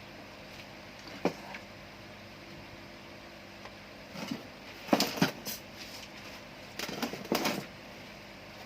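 A steady hum with a few short clicks and clattering knocks: a single click about a second in, a burst of clatter around the middle, and another near the end.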